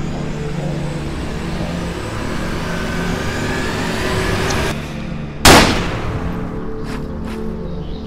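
Film score music with sustained tones, broken by a single loud gunshot about five and a half seconds in that trails off over about half a second.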